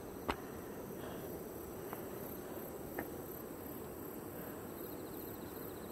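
Outdoor ambience with a steady high insect trill, broken by three light taps.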